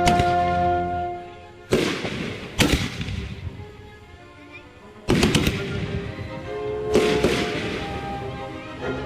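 Consumer aerial fireworks bursting: a sharp bang with a crackling tail about two seconds in, another shortly after, a quick cluster of bangs around five seconds and another burst near seven seconds. Background music plays throughout.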